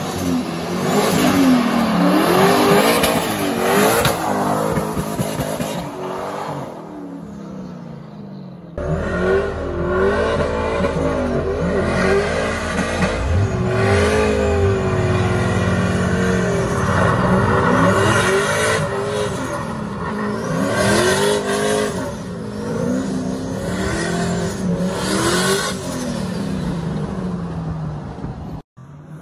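Turbocharged Chevy Silverado pickup drifting: its engine revs up and down in pitch again and again under wheelspin, over a hiss of spinning, squealing tyres.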